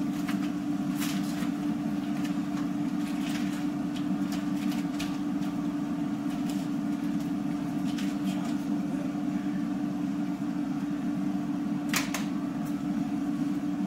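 Steady hum of a running kitchen appliance's motor or fan, with a few scattered light clicks and knocks from kitchen work, the sharpest one near the end.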